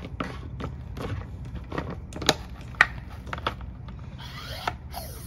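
Plastic pump assembly of a handheld pump sprayer being screwed into the tank's neck by hand: scattered plastic clicks and scraping of the threads, turning into a repeated rasping about twice a second near the end.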